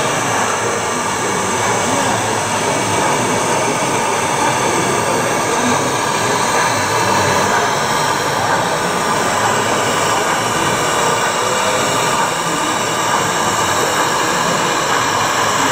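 Model trains running on a layout: a steady, even running noise with no clear beats or pauses.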